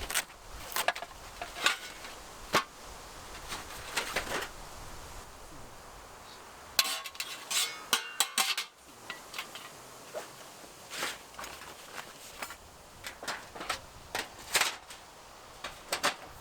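Metal camping gear being handled: irregular clinks and knocks, with a quick run of ringing metallic clatters about halfway through.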